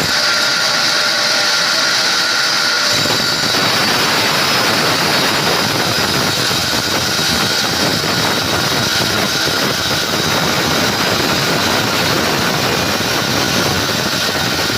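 Power tool motor running steadily with a high whine; about three seconds in, a deeper, rougher noise joins it.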